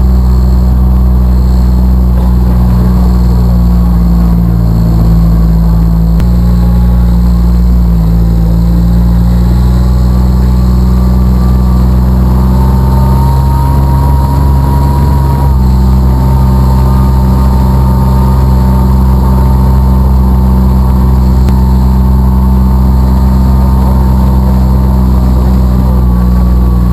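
Engine of a side-by-side utility vehicle running steadily while driving, heard from inside its open cab, with a small change in engine pitch about six seconds in and again about fifteen seconds in.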